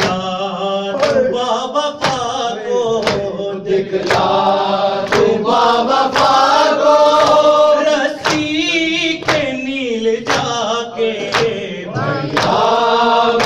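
Men chanting a noha, an Urdu Shia lament, with palms striking their chests in matam about once a second as a steady beat.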